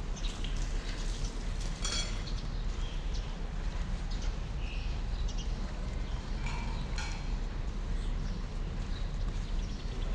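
Footsteps on a tiled courtyard floor, with a few sharper clicks about 2 and 7 seconds in, over a steady low rumble.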